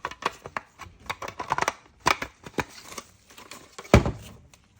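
Plastic parts of a Dyson V10 direct drive cleaner head being handled and fitted together: a run of small clicks and knocks, with one louder knock about four seconds in.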